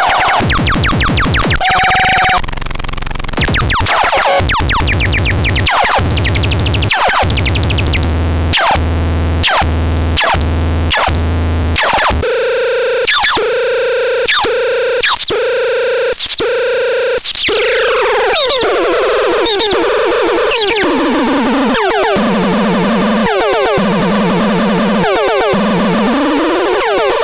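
Manticore Supersonic 24S electronic sound signal stepping through synthetic tones: fast stuttering pulses, a pulsed steady tone, falling sweeps, and a rising glide near the end.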